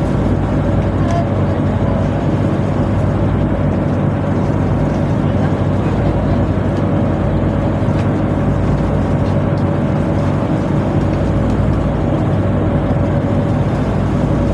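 Tugboat's heavy machinery running steadily, a loud even drone with a low hum and a thin higher tone held throughout.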